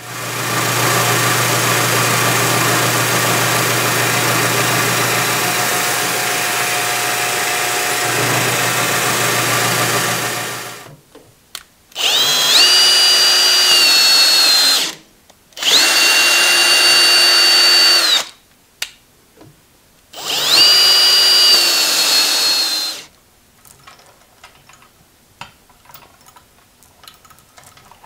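A drill press with an end mill runs steadily for about eleven seconds, a constant motor hum under noisy cutting, as it mills a cast-iron riser block. Then a 24-volt cordless drill/driver runs in three bursts of a few seconds each, its whine rising as it spins up and dropping as it stops, while it works in the riser block's bolt holes.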